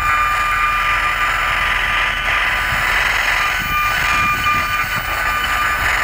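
Handheld electrosmog RF meter (50 MHz–3.5 GHz) in audible mode, its speaker putting out a steady hissing static with a thin, high whine running through it: the meter turning the microwave signals from nearby cell-tower antennas into sound, here at high, constant levels.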